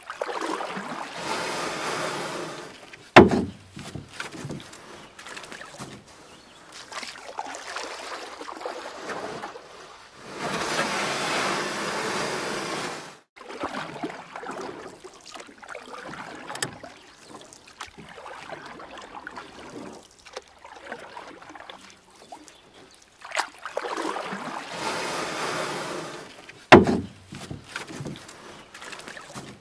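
Plastic kayak under paddle on slow river water: stretches of a few seconds of water swishing and splashing from the paddle strokes, with quieter lapping between. Two sharp knocks on the hull, a few seconds in and near the end, are the loudest sounds.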